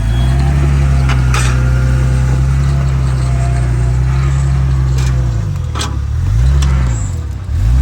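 Off-road vehicle's engine running at low speed under load. Its pitch dips and rises several times in the second half as the throttle is worked. A few sharp knocks sound, about a second and a half in and twice near five to six seconds.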